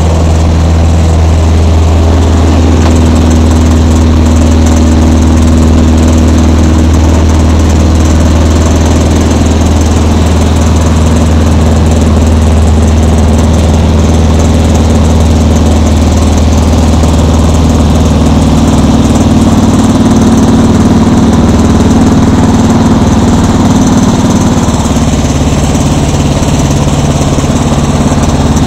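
Light aircraft's piston engine and propeller running with a loud, steady low drone, its pitch shifting slightly about two-thirds of the way through. The engine has a burst cylinder and has lost RPM.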